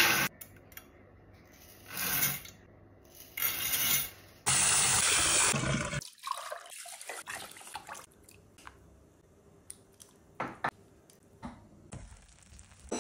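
Pouring into a rice cooker's metal inner pot: short hissing bursts of dry rice poured from a measuring cup, then a loud steady rush of water about four and a half seconds in that cuts off sharply. Quieter pouring and a few light clicks follow.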